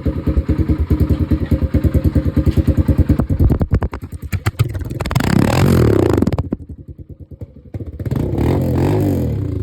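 Kawasaki KLX140RF's single-cylinder four-stroke engine through its stock exhaust with the baffle removed, idling with a quick, even exhaust pulse, then revved twice, about five and eight seconds in.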